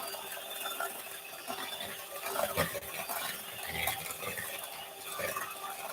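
Eggs and sugar being beaten by hand in a bowl: an uneven run of small clicks and soft scraping from the beater, with no motor running.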